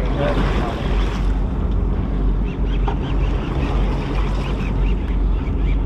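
Boat engine running with a steady low drone, with wind on the microphone.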